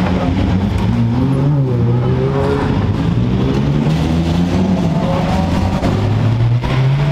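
Race car engines running in the pit lane, a loud steady engine note that rises and falls a little in pitch.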